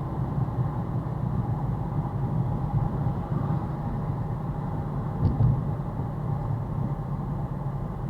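Steady engine and road rumble of a car driving in traffic, with one short knock about five seconds in.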